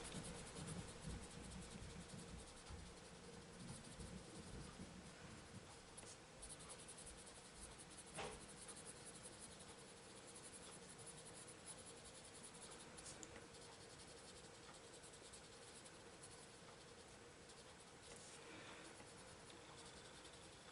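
Coloured pencil faintly scratching on paper as burnt umber is shaded in along dark lines, with one light tap about eight seconds in.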